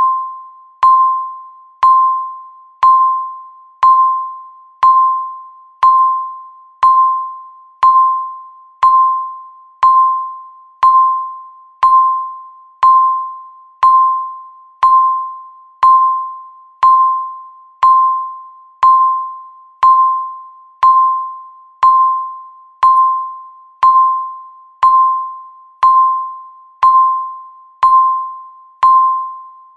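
Countdown timer beeping once a second: a single-pitched electronic beep that starts sharply and fades away, repeated evenly, about thirty times.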